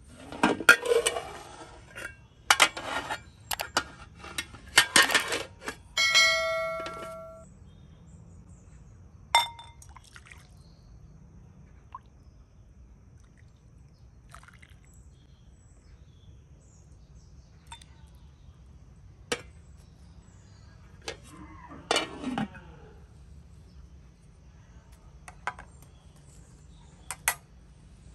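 Dishes and cooking utensils clinking and knocking together in a quick flurry. About six seconds in, one struck piece rings out for about a second. Afterwards come only scattered light clicks.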